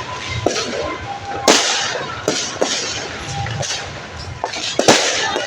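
Fireworks and firecrackers going off: several sharp bangs at irregular intervals over a continuous hiss, the loudest about a second and a half in and again near the end.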